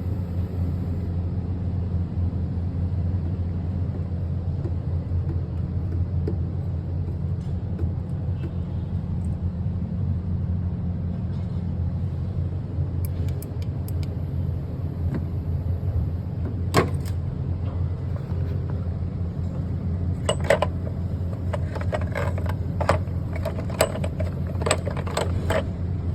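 GM engine idling steadily, its running sound put forward as the sign of bad valve lifters. A sharp click comes about two-thirds of the way in, then a cluster of clicks and knocks near the end.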